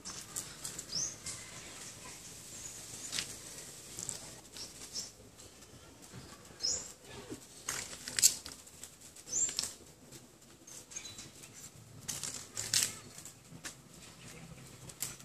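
Dogs moving about on sand and concrete: quiet, scattered scuffing and rustling with short sharp clicks, loudest about eight and thirteen seconds in. A few brief, high bird chirps come through now and then.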